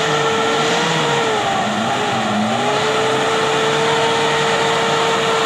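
Off-road 4x4's engine revving hard as it churns through deep mud. The engine note dips and rises over the first couple of seconds, then holds high and steady.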